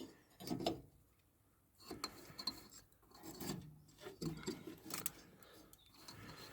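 Hand tools working on a metal mower deck: irregular short bursts of scraping and rubbing with sharp clicks in between.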